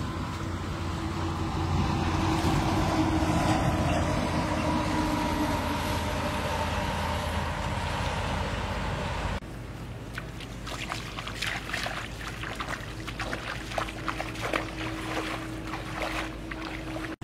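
A steady rushing noise with a low hum, then, after an abrupt change about nine seconds in, irregular splashing of feet wading through shallow water.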